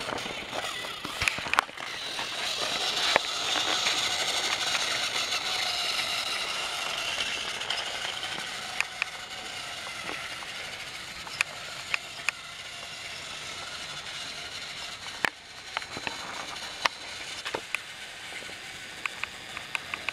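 Battery-powered Trackmaster toy engine whirring steadily as it runs along plastic track pulling a truck. Sharp clicks come now and then, and a quick run of ticks near the end.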